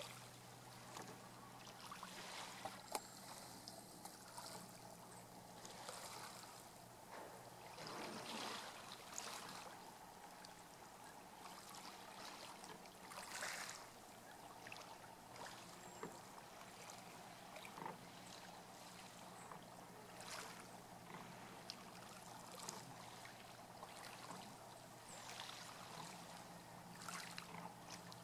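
Oars of a rowboat dipping and pulling through calm water, a soft swish and trickle about every two seconds, faint over a low steady hum.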